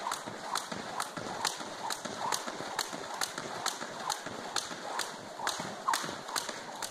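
Skipping with a light jump rope on a wooden floor: the rope slaps the floor with each turn, about twice a second in a steady rhythm.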